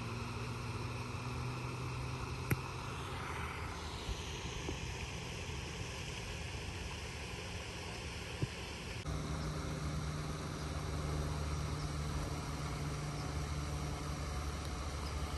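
A single sharp click of a golf club striking the ball on a short chip shot, about two and a half seconds in, over a steady low engine-like drone. The drone changes abruptly about nine seconds in.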